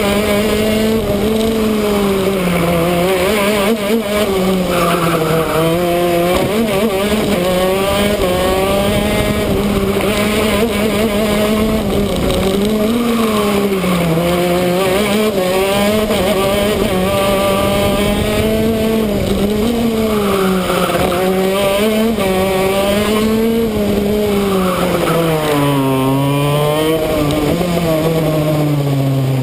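Two-stroke shifter kart engine at racing speed, its pitch rising and falling repeatedly as it accelerates and slows through the corners, settling lower near the end.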